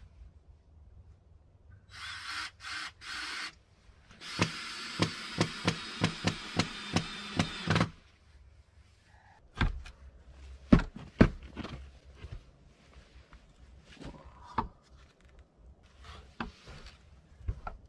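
Power drill running into the wood of a log-cabin door, first a short broken burst, then a longer steady run of about three and a half seconds with regular clicks through it. After it stops, scattered wooden knocks and rubs as the door and its frame are handled.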